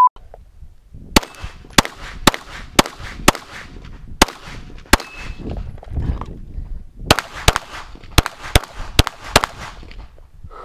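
Glock pistol fired in a string of about fourteen shots: about seven spaced shots over the first few seconds, a pause of about two seconds, then a faster run of about seven more.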